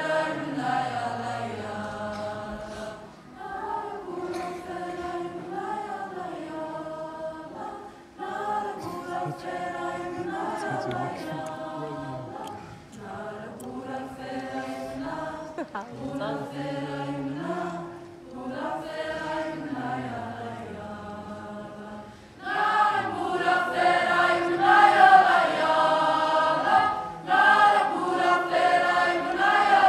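A student choir singing a cappella in long, held phrases with short breaks between them. The singing grows much louder about three-quarters of the way through.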